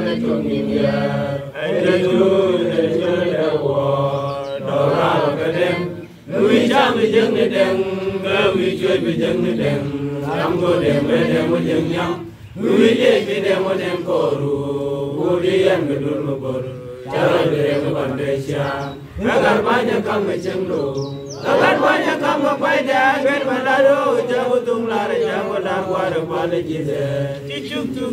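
A large group of voices chanting a song together in long sung phrases, with a brief break between phrases every six seconds or so.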